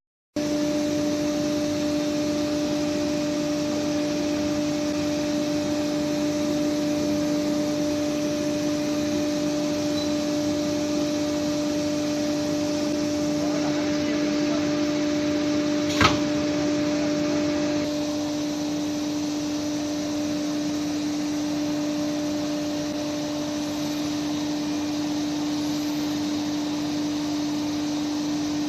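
CNC wood router with a revolver-type tool changer running steadily: a constant humming tone over a machine hiss, with one sharp click about sixteen seconds in.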